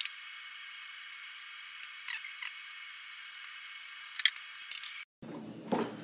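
Light clicks and taps of hands handling a circuit board and small parts over a steady thin hiss. The sound cuts out for a moment about five seconds in.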